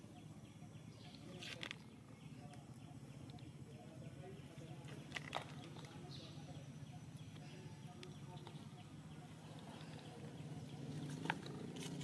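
Faint outdoor background: a steady low hum with three sharp clicks, about one and a half, five and eleven seconds in.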